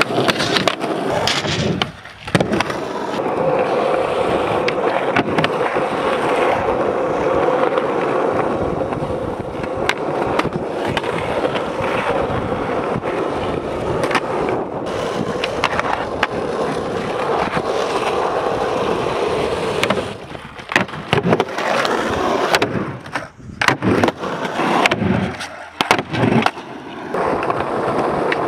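Skateboard wheels rolling loud and gritty over rough, cracked concrete, broken by sharp clacks of boards popping and landing flip tricks. Near the end the rolling drops out in short gaps, and the separate snaps and slaps of the board stand out.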